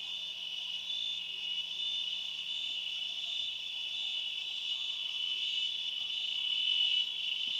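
Chorus of insects shrilling: a continuous, steady high-pitched drone that grows slightly louder toward the end.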